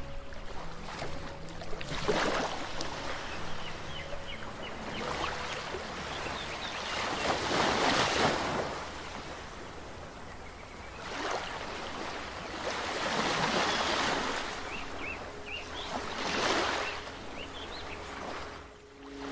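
Sea waves washing onto a shore, a rushing hiss that swells and falls back in about four surges.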